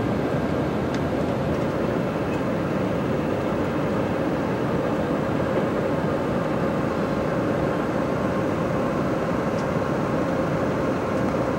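Steady engine and road noise of a moving vehicle: an even rumble with a faint constant hum.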